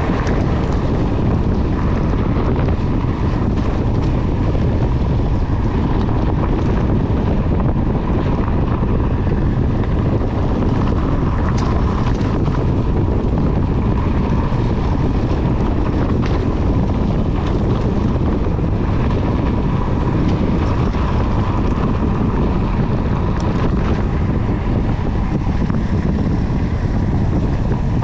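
Steady wind noise buffeting the microphone of a mountain bike rider's camera while riding, with a single brief click about twelve seconds in.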